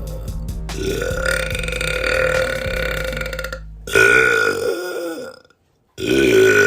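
A girl burping: one long drawn-out burp, then two shorter, louder burps about four and six seconds in.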